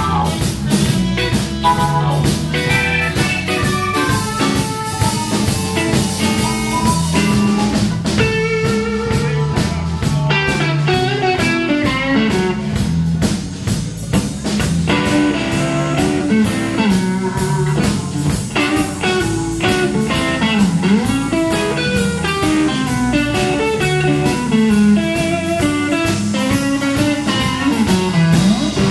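Live electric blues band playing an instrumental passage: bent, wavering electric guitar notes over bass guitar and a drum kit.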